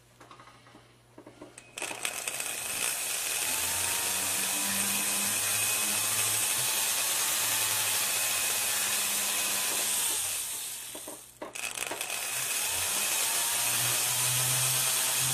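Jeweler's rotary handpiece spinning a small felt buff charged with tripoli polishing compound against a ring. The motor starts up about two seconds in and runs with a whir whose pitch shifts as the speed changes, stops briefly about two-thirds of the way through, then runs again.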